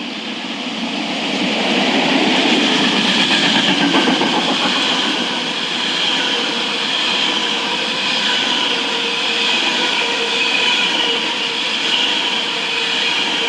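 Freight train passing close by, its wagons rolling past in a steady rumble, with a thin high whine from the wheels on the rails. It swells over the first couple of seconds, then holds steady.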